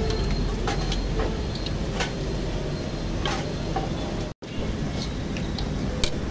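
Deep-frying in a steel karahi of hot oil, with a wire-mesh skimmer clinking against the pan several times over a steady low rumble. The sound cuts out for an instant about four seconds in.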